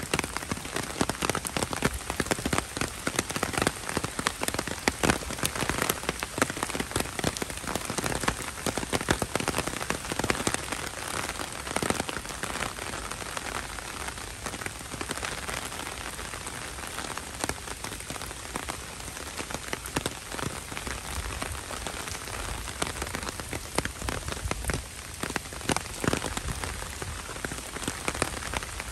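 Heavy rain falling steadily, with a dense run of sharp drop impacts close by.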